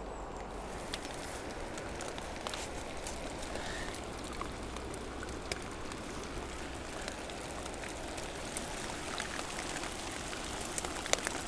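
Rain falling on a pond's surface: a steady patter with many scattered sharp drop ticks, a few louder ones near the end.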